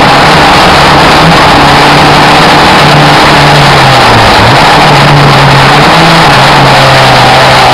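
Race car engine running hard and loud, its revs dipping briefly about four seconds in and then climbing again.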